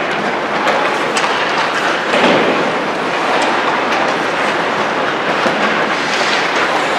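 Ice rink ambience during hockey practice: a steady wash of skates scraping and carving the ice, with a few faint clacks of sticks and pucks.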